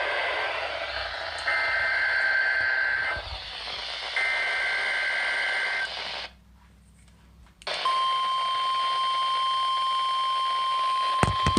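Weather radio reception with static hiss: three bursts of the warbling two-tone SAME digital header of an EAS weekly test. After about a second and a half of quiet, the steady NOAA Weather Radio 1050 Hz warning alarm tone sounds, with a couple of clicks near the end.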